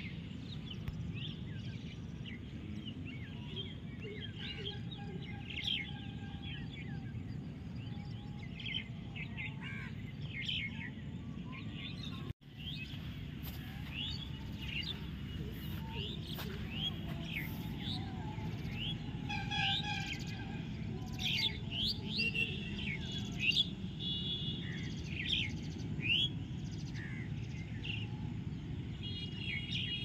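Many birds chirping and calling, short varied calls that come thicker in the second half, over a steady low outdoor rumble. The sound drops out for an instant about twelve seconds in.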